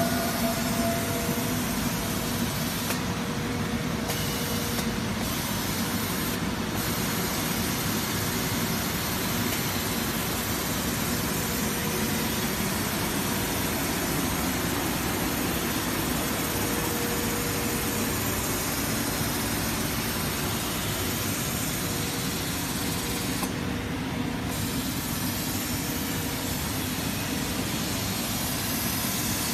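QBBBJ-2000 edge trimming overlock machine running steadily as it sews a quilt edge: an even machine whir with a faint steady hum. The high hiss drops out briefly a few times.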